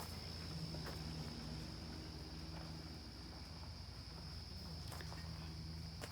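Crickets or similar insects trilling steadily as one constant high-pitched drone, over a low steady hum and a few faint clicks.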